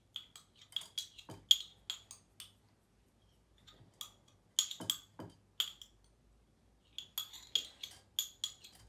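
A metal spoon clinking and scraping against the inside of a small drinking glass while scooping wet dyed rice out into a sieve: a run of sharp, ringing clinks in three bursts with short pauses between.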